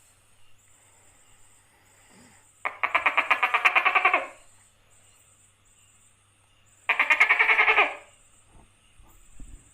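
Tokay gecko calling: two rapidly pulsed calls, each about a second and a half long and about four seconds apart.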